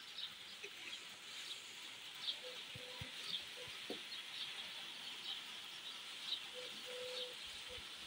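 Steady hiss of a light rain shower, with birds chirping again and again and a few short lower calls, the longest near the end.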